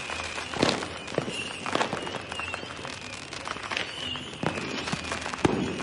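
Fireworks and firecrackers going off at irregular moments: several sharp bangs, the loudest near the end, over a steady background din with a faint wavering high tone.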